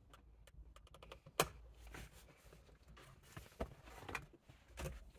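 Trim clips snapping out of a Tesla Model S steering wheel as the airbag and trim unit is pried and pulled free: one sharp snap about a second and a half in, then a few softer clicks near the end.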